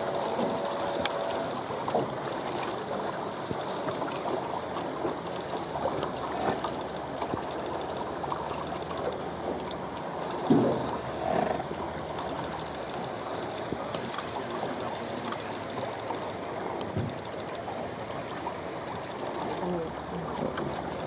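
Steady noise of moving water, with a few soft knocks; the loudest thump comes about ten seconds in.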